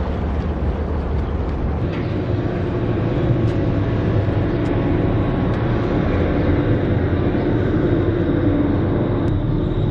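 Commuter ferry's engines running at the landing: a steady low rumble with a constant hum, growing a little louder about halfway through.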